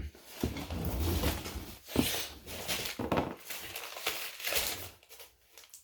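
Rummaging through a box of sewing machine parts: rustling and light clinks of objects being moved, with a sharp knock about two seconds in.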